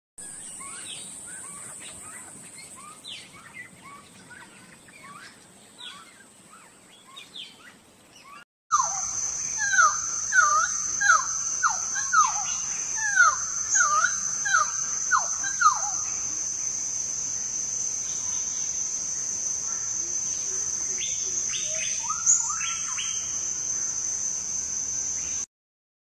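Wild cucak timur songbird singing: soft scattered chirps at first, then, after a break, a loud quick run of falling whistled notes, with a shorter burst of notes near the end. A steady high-pitched hum runs underneath.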